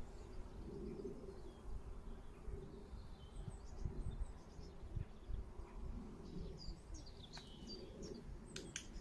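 Small birds chirping in short, high calls scattered through, over a steady low outdoor rumble, with two sharp clicks close together near the end.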